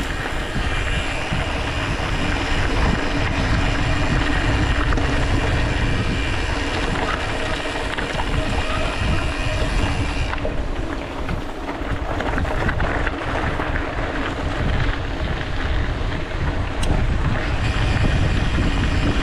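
Wind buffeting the microphone over the rumble of mountain-bike tyres rolling on a rough, rutted forest road, with small clicks and rattles from the bike throughout.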